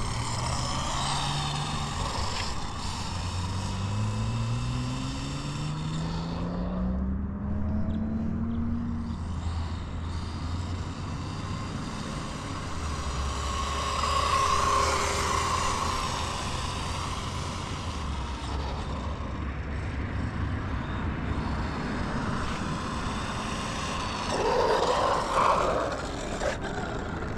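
Arrma Fury 2WD short course RC truck running flat out on a top-speed run with its stock 2S LiPo battery, its electric motor whine rising in pitch several times in the first nine seconds or so as it accelerates, then running at a steadier speed.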